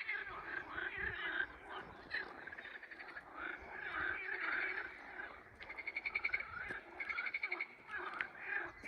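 Chorus of frogs croaking: many overlapping calls, with rapid rattling trills that swell and fade.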